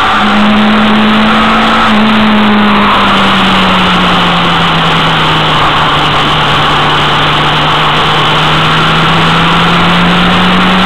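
Motorcycle engine running at road speed under a heavy rush of wind and road noise. Its steady hum steps up just after the start, dips about three seconds in and sinks slowly over the next few seconds as the bike eases off.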